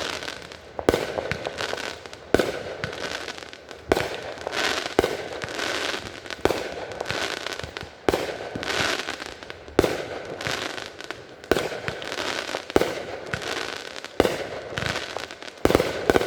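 Fireworks going off in a steady barrage: a sharp bang about every second or so, with crackling between the bangs.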